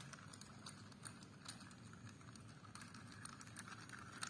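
Faint, scattered light clicks and taps of a small toy train engine being handled and set onto plastic toy track.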